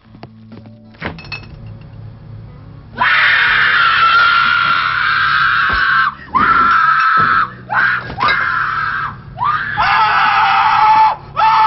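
Shrill screaming, starting about three seconds in: one long scream, then a string of shorter ones, each sliding up in pitch as it starts. Before it, only faint clicks and a low hum.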